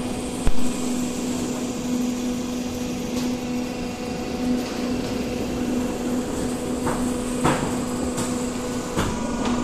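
Steel roofing-sheet roll forming line running: a steady electric motor hum with one constant tone. There is a sharp knock about half a second in and a few fainter knocks later.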